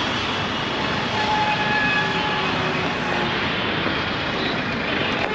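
Busy city road traffic: a steady wash of engine and tyre noise, with a few faint held tones above it.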